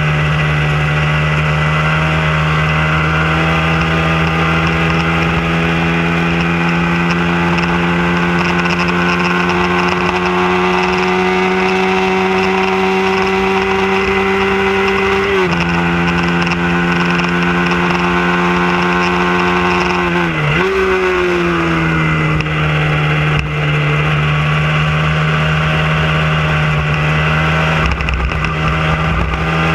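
Hyosung sport bike's V-twin engine running hard at high revs with wind rush over the bike. The pitch climbs slowly, drops suddenly about halfway in at a gear change, dips sharply and recovers a few seconds later, then falls away before steadying.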